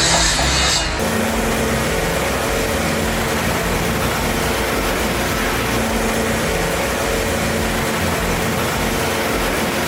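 Industrial shredder running, a loud steady mechanical din with a low hum that comes and goes. About a second in the sound changes abruptly and a high hiss cuts off.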